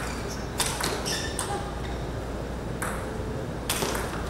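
Table tennis ball being hit by the rackets and bouncing on the table during play: four sharp clicks at uneven gaps, each with a short ring.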